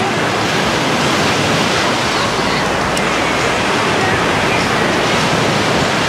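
Small sea waves breaking and washing up a sandy shore in a steady wash of surf, with faint voices of beachgoers in the background.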